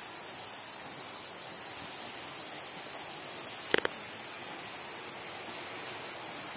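Steady hiss of the cave's ambience while people walk along the boardwalk, with a brief sharp double knock a little under four seconds in.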